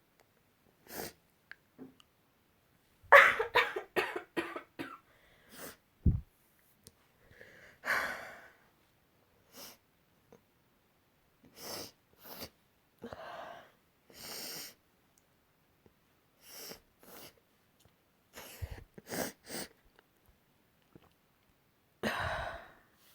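A person sneezing several times, with fainter sniffs and breaths between. The loudest sneeze comes about three seconds in, with others around eight seconds and near the end.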